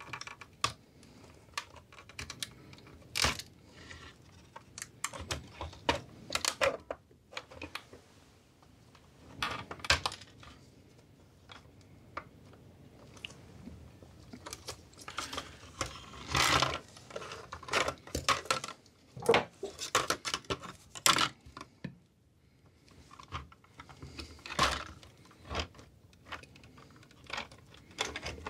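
Glass headlamp lens and cracked plastic reflector being pried apart with a metal trim spreader tool: irregular clicks, taps and scrapes of glass and plastic, busiest about two-thirds of the way through. The plastic reflector, degraded by petrol, is breaking up as the lens comes away.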